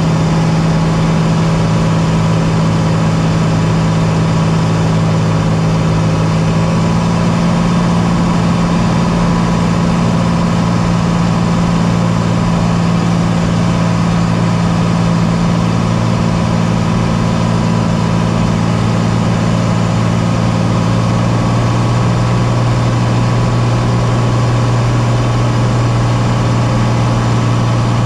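Light aircraft's engine and propeller running steadily, with its pitch shifting a little lower about two-thirds of the way through.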